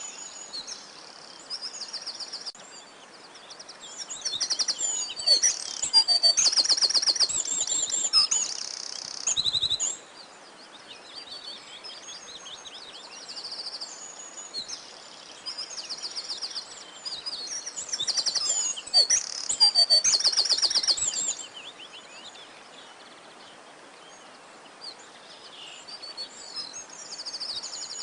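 Songbirds singing: bursts of high chirps and fast trills, rising to two louder bouts of song over a faint steady hiss.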